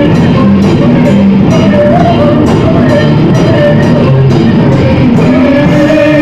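Gothic metal band playing loud and live, with electric guitars and a drum kit keeping a steady beat.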